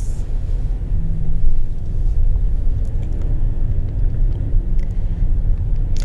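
Steady low rumble of a car in motion: road and engine noise.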